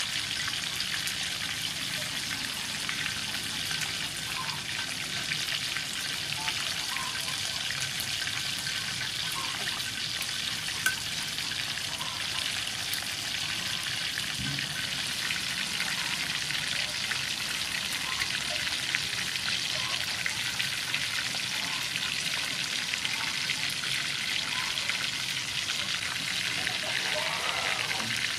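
Batter-coated chicken wings deep-frying in hot oil: a steady hissing sizzle with fine, continuous crackling.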